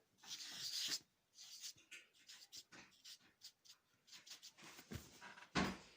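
Drawing on a paper wallet: short scratchy pen strokes on paper, with paper rustling in the first second and a soft knock near the end.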